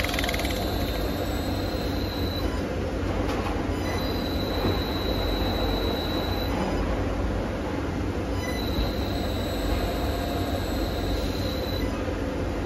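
Three-phase electric motor run by a Huanyang FC01 variable-frequency drive, humming while its speed is turned up and down with a potentiometer. A high whine comes and goes three times over the steady hum.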